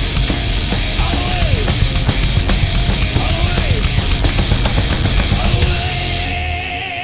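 Heavy metal band playing live and loud: distorted electric guitar, bass and drums. Near the end the drums drop out and a single high note is held, wavering slightly.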